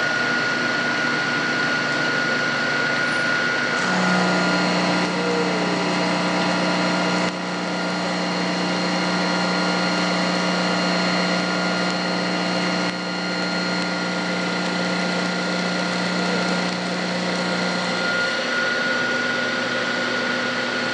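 Metal lathe running under load as a carbide tool bit takes a heavy half-inch-deep roughing cut on an out-of-square workpiece, the uneven part making the whole machine vibrate. A steady machine drone, with a strong low hum that comes in about four seconds in and stops a few seconds before the end.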